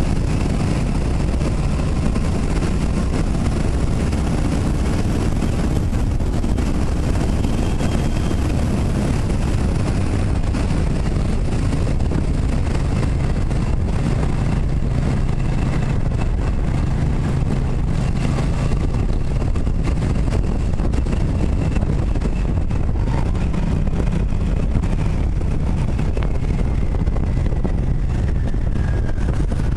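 Motorcycle riding along steadily: the engine running under a heavy, unbroken wind rumble on the microphone.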